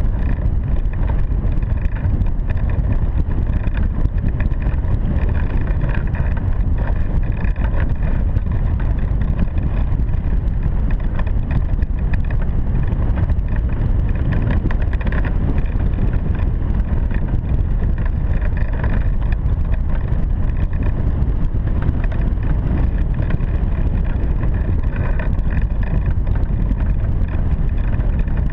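Steady rush of wind over a hang glider in flight, buffeting the microphone of a camera mounted on the glider into a loud, even rumble.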